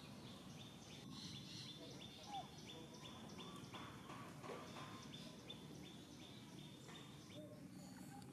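Faint outdoor ambience with high chirping repeated about three times a second, and a short rising squeak about two seconds in.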